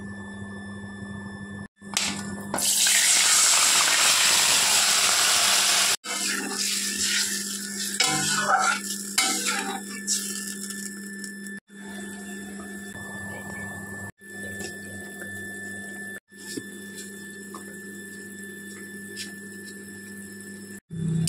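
Cooking in a steel wok (karai): a loud sizzle as something goes into hot oil, then irregular crackling and spitting as small fish fry. After that comes a quieter steady sizzle and bubbling, with a constant low hum underneath.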